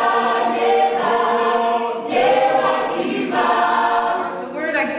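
A group of voices singing together in harmony, choir-like, holding each note for a second or so before moving to the next.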